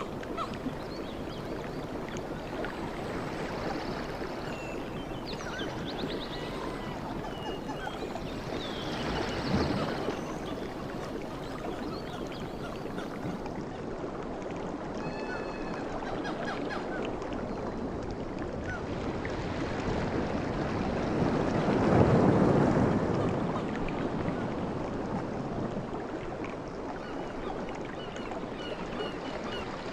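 Sea waves washing onto a beach: a steady rush of surf, with one wave breaking about ten seconds in and a bigger, louder one about twenty-two seconds in.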